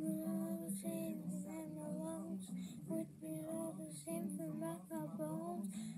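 A song with a voice singing a melody in long, wavering notes.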